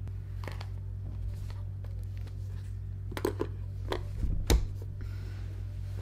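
A pen and notebook being handled: a few light scratches and taps as writing stops, the notebook is closed and the pen set down on it, the loudest a dull tap about four and a half seconds in. A steady low hum runs underneath.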